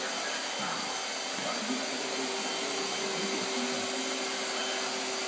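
Corded upright stick vacuum cleaner running steadily, a constant motor hum and airflow hiss as it is pushed over carpet.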